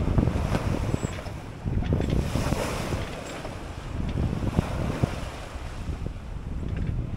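Wind buffeting the microphone over the rush of sea water along the hull of a sailing yacht under way, with waves splashing at the bow; the sound swells and eases in gusts.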